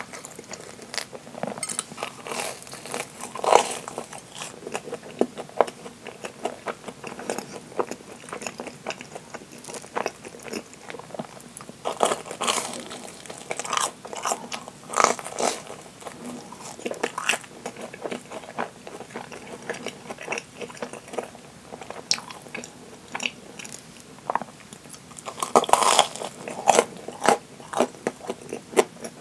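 Biting and chewing a deep-fried Japanese curry bread (kare pan): crisp crunches of the crispy breaded crust in repeated clusters, with quieter chewing between, the loudest run of crunching near the end.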